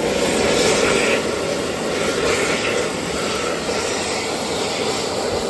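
Blade-type jet-air hand dryer cutting in at full power and blowing steadily, a loud rushing of air.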